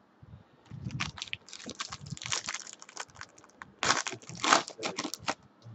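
Foil trading-card pack wrapper being crinkled and torn open by hand, a dense run of crackles that is loudest near the end.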